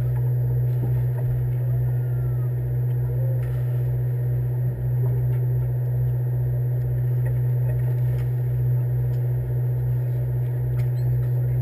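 Fishing boat's engine idling: a steady low hum with a throb about twice a second underneath.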